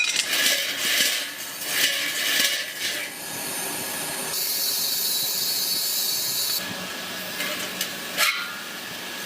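Workshop tool noise on steel: irregular scraping and knocks, with a steady hiss for about two seconds in the middle.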